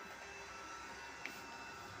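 Robot vacuum cleaner running: a steady motor whir with several high whining tones, and one sharp click a little past halfway.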